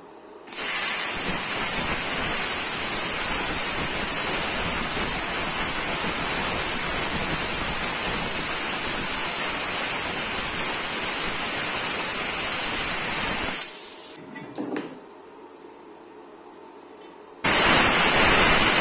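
Resanta IPR-40 40-amp inverter plasma cutter cutting a steel angle: a steady hiss of arc and compressed air with a high whine over it, running about thirteen seconds. It stops, then starts again as the cut resumes near the end.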